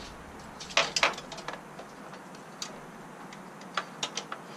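Scattered short clicks and taps at irregular spacing, two loudest about a second in, from handling and fitting a metal hood strut bracket and its hardware.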